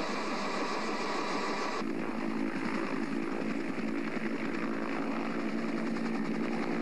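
Steady drone of an aircraft engine.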